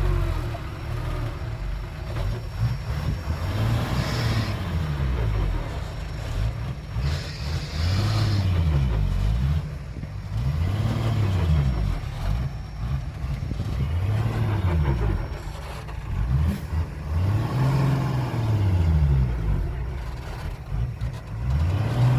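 Heavy diesel engine of a truck or bulldozer revving up and falling back again and again, about every three to four seconds.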